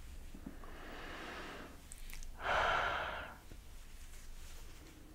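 Breath blown close into the microphone: a soft breath, then a louder, longer exhale about two and a half seconds in, as warm air is breathed onto the camera lens to fog it.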